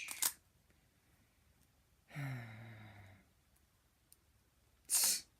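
A person sighs once, a voiced sigh about a second long falling in pitch, about two seconds in. A few sharp clicks at the start and a short hiss near the end.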